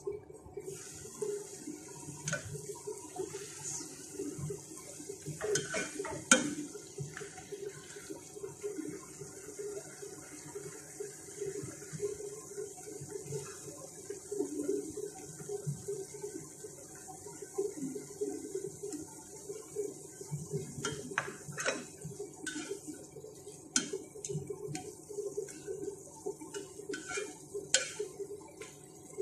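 Chicken and vegetable stir-fry sizzling in a deep frying pan: a steady hiss sets in as the glass lid is lifted off. A few seconds in come sharp knocks, the loudest, as the lid is set down, and near the end a spatula clinks and scrapes against the pan as the food is stirred.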